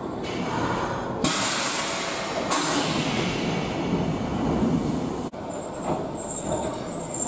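Stationary Nankai electric commuter train giving a loud blast of compressed air from its brakes as the brake is set to emergency during the change of driving end at a terminal. The hiss starts suddenly about a second in, grows louder a moment later, and cuts off abruptly about five seconds in. A fainter high-pitched squeal follows.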